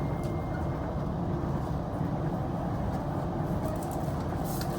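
Floodwater rushing, a steady noise heaviest in the low end that does not change.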